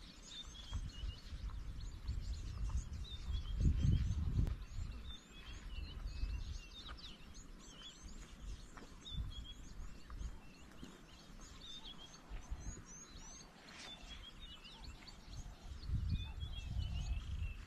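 Small birds chirping steadily around a waterhole, over low heavy thuds of giraffe footsteps on the ground, loudest about four seconds in and again near the end as a second giraffe walks up.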